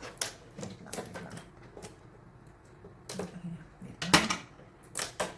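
Action-camera packaging being handled and opened: a run of irregular sharp clicks and crinkles, loudest about four seconds in.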